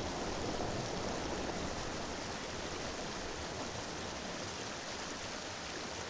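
Fast stream water rushing over rocks in whitewater rapids, a steady hiss and rumble.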